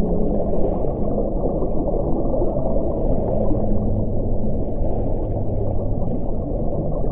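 Whale calls: long, low held moans over a dense underwater rumble, one low moan held for a few seconds in the middle.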